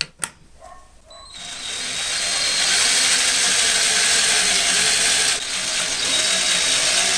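Cordless electric drill in a homemade drill press, starting up after a couple of clicks and running steadily at speed for several seconds, with a brief dip near the end.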